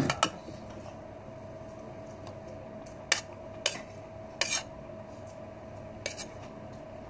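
Metal spoon and fork clinking and scraping on a plate as food is scooped up: a few short, sharp clinks spread over several seconds, with a steady faint hum underneath.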